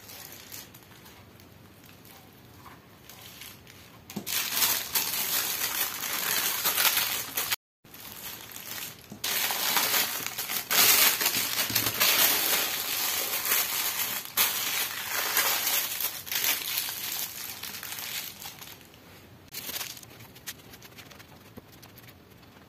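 A thin plastic wrapping sheet crinkling and rustling as a paratha roll is rolled up and wrapped in it by hand, in two long stretches with a short break between them.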